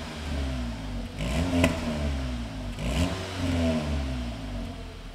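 Seat Cupra Ateca's turbocharged four-cylinder engine revved repeatedly through its modified ASG exhaust, the pitch rising and falling about four times. A sharp pop cracks from the exhaust about a second and a half in, and another comes about a second later.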